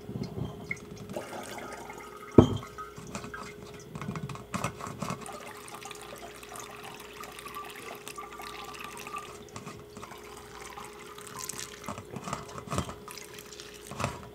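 Kombucha trickling and dripping through a filter into a container, draining slowly because lime pulp clogs the filter, with small clicks throughout and one sharp knock about two seconds in.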